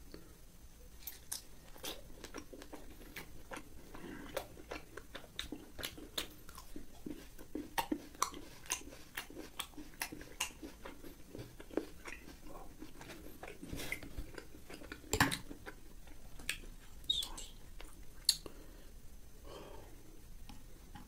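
Crunching and chewing of crispy fried pork: a long run of sharp, irregular crackles as it is bitten and chewed, loudest about two thirds of the way through and thinning out near the end.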